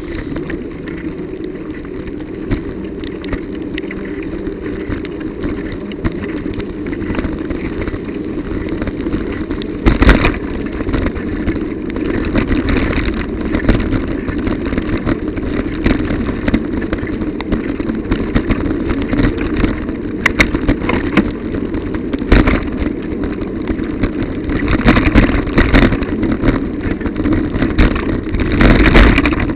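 Steady rushing noise of a bicycle riding over a wet, broken road, picked up through a bike-mounted dashcam's microphone, with a few sharp knocks as the bike jolts over bumps and holes, the loudest about ten seconds in and again about twenty-two seconds in.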